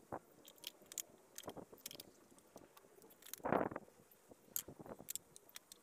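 Hand tools being handled at a plywood tool caddy: scattered light clicks and knocks of wood and metal, with one louder clunk about three and a half seconds in.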